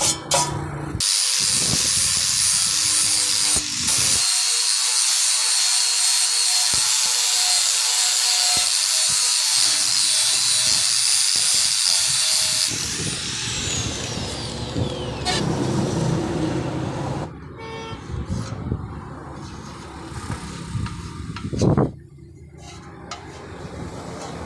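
Angle grinder running steadily for about twelve seconds, then switched off and winding down with a falling whine. Quieter handling noises follow, with one short loud knock near the end.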